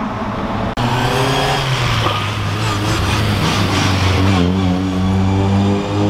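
Rally car engines running at low revs inside a road tunnel. After a brief cut about a second in, the revs rise shortly near two seconds, then settle into a steady low engine note from about four and a half seconds.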